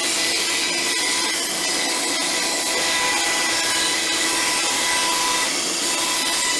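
Woodworking power tool running steadily while shaping a cedar blank for a table saw insert plate.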